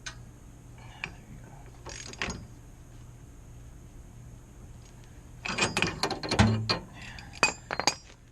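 Hand tools tightening a new inner tie rod onto a steering rack: a few scattered metal clicks, then two quick runs of ratcheting and clattering metal clicks near the end.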